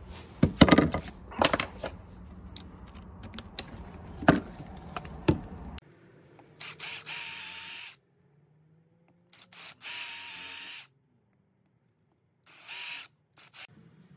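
A few knocks and clatters as the vinyl jamb repair pieces are handled. Then a cordless drill runs in several short bursts, each spinning up to a steady whine, pre-drilling screw holes through the PVC jamb repair piece into the wooden door frame.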